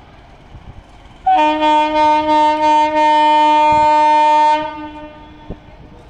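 Horn of an approaching Indian Railways WAG-7 electric locomotive. It starts about a second in with a few short blasts and runs straight into one long held blast, a bit over three seconds of horn in all.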